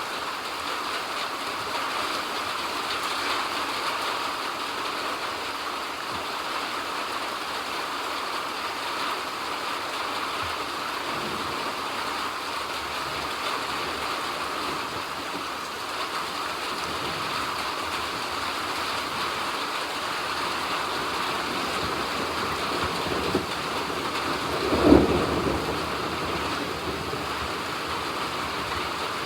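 Steady heavy rain falling and pattering on surfaces. Near the end a single short low thud stands out above the rain.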